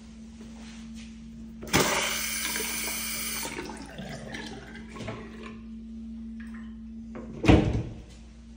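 Bathroom sink faucet turned on, water rushing out for about two seconds, then shut off, with the sound fading over the next few seconds. A sharp thump near the end, over a steady low hum.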